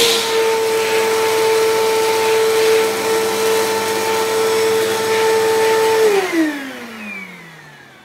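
Bissell CleanView PowerTrak upright vacuum running with a steady whine, then shut off about six seconds in, its pitch falling smoothly as the motor spins down.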